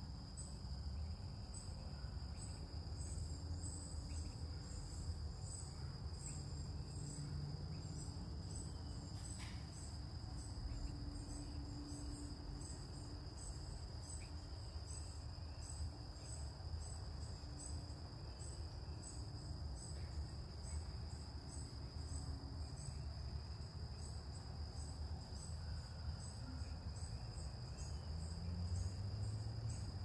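Crickets trilling in a steady, continuous high drone, with a second insect chirping in regular short pulses above it. A steady low rumble lies beneath.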